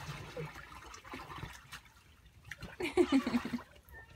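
A young child's short, high-pitched vocal call about three seconds in, over a light steady hiss.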